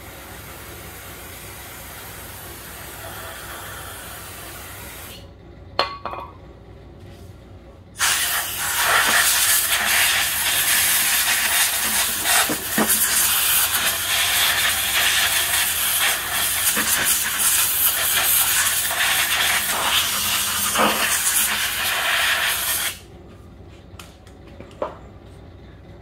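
An aerosol can of brake cleaner sprays in a steady hiss for about five seconds. After a short click and a pause, a compressed-air blow gun hisses loudly for about fifteen seconds, blowing debris off the mower engine's carburetor area, then cuts off.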